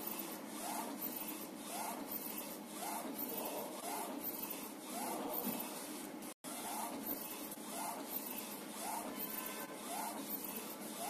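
BYC A3 UV flatbed printer running a print job, its print-head carriage shuttling back and forth. The carriage motor gives a short rising whine on each pass, about one every three quarters of a second, over a steady machine hum. The sound cuts out for an instant a little past halfway.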